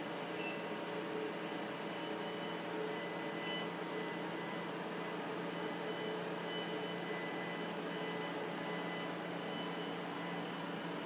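Steady hum and hiss of running lab equipment, with a few faint high whines that fade in and out.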